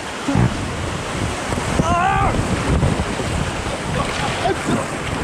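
Rushing river water in a rapid, with wind buffeting the microphone in a heavy low rumble. A short cry comes about two seconds in.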